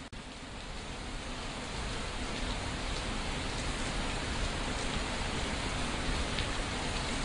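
Steady rain-like hiss, swelling over the first two seconds and then holding even.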